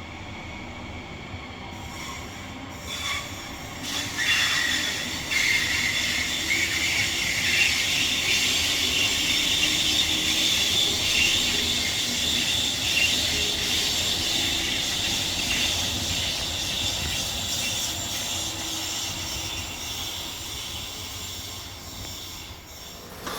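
A passenger train passing along the line: the rush of wheels on rail builds over the first few seconds, holds with a high ringing tone over the hiss, and slowly fades away near the end.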